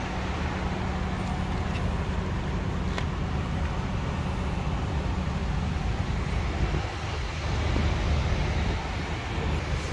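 Steady low rumble of a vehicle engine, with a faint click about three seconds in.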